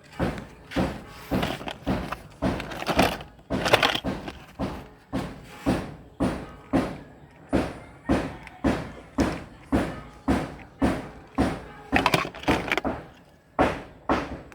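A steady drum-like beat of heavy hits, about two a second, each dying away quickly, as in the percussion of intro music.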